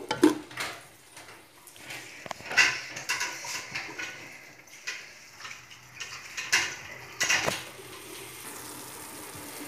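Wooden spoon stirring chopped onions as they fry in oil and butter in a metal pot: several separate knocks and scrapes of the spoon against the pot, over a faint sizzle.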